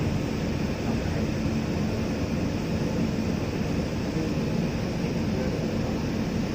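Steady low rumble and rushing noise of a jet airliner heard from inside the cabin, with a faint steady hum and no change in level.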